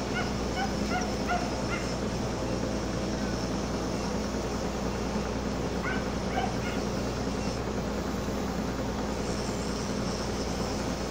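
A dog barking in short, quick yips, a run of them near the start and a few more about six seconds in, over the steady low hum of the ship's engine.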